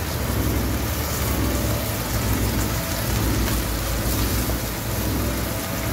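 Diced beef, mushrooms, corn and pineapple sizzling steadily as they fry in a nonstick pan, stirred with a silicone spatula, over a steady low hum.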